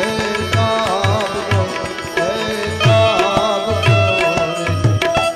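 Gujarati devotional bhajan: a harmonium holding steady chords under a wavering melody line, with clusters of low hand-drum strokes. The music breaks off at the very end.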